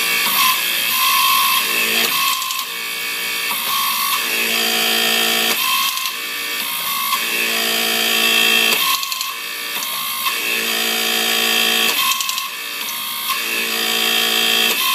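Hydraulic pump running and driving a TTZ low-clearance hydraulic torque wrench, which ratchets as it loosens a nut. The sound swells and drops in a repeating cycle every two seconds or so as the wrench strokes.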